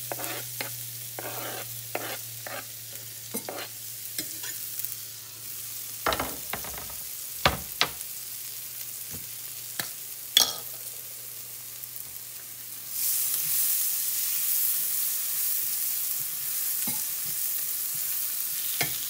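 Diced bell peppers and green onions being scraped into a skillet of hot butter and sautéing: a steady sizzle with scattered clicks and a few sharp knocks, the sizzle growing clearly louder about two-thirds of the way in as the vegetables fry and are stirred with a spatula.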